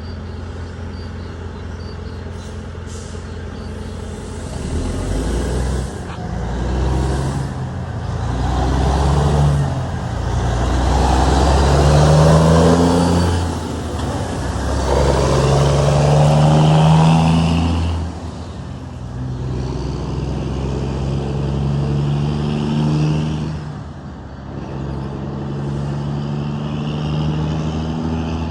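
Heavy diesel truck engine running steadily at first, then pulling away about four seconds in and accelerating through several gears: the engine note climbs in each gear and drops at each change, loudest in the middle.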